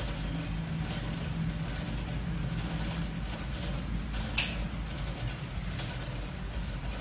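Small metallic clicks of pliers working steel wire, with one sharp click about four and a half seconds in, over a steady low background rumble.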